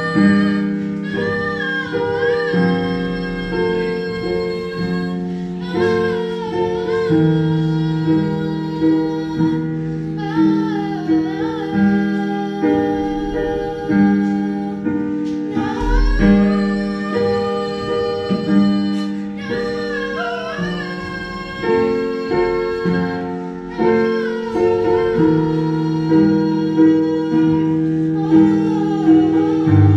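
A children's choir sings a slow song to keyboard accompaniment, the keyboard holding chords that change every second or two beneath the wavering sung melody.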